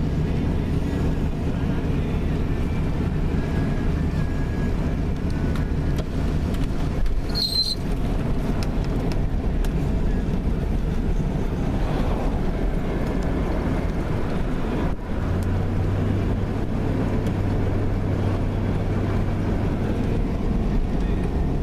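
Car engine and road noise, a steady rumble with a low engine hum while driving, and a brief high-pitched squeak about seven seconds in.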